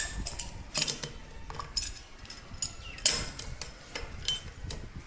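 A wrench tightening a tap connector fitting: a run of irregular sharp clicks and knocks as the tool works round the joint, the loudest about three seconds in.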